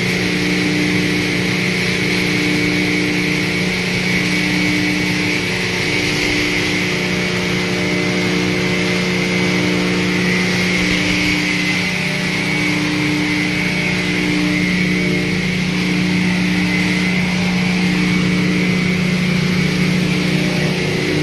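Dual-shaft hammer mill running steadily, crushing wood chips into sawdust: a loud, constant industrial drone with a steady hum and a higher tone that swells and fades about once a second.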